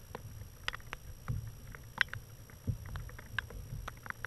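Water lapping against a fishing kayak's hull: many small, irregular clicks and splashes over a low steady rumble.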